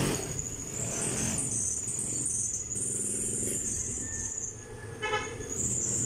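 Juki industrial sewing machine running steadily while tarpaulin is fed through it, with a brief horn toot about five seconds in.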